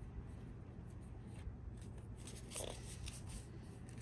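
Faint rustling and light clicks of Pokémon trading cards being handled and sorted, with one slightly louder scrape about two and a half seconds in.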